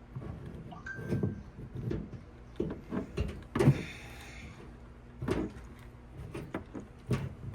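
A string of light knocks and clicks, with a short rustle about three and a half seconds in.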